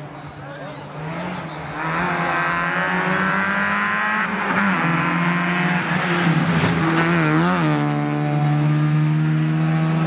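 Rally car engine revving hard, quieter at first and then loud from about two seconds in, its pitch climbing and dropping sharply at a gear change, with another dip and rise near the end.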